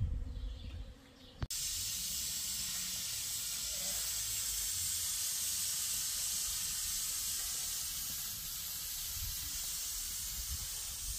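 Pressure cooker venting steam at its valve with a steady, even hiss, starting abruptly about a second and a half in.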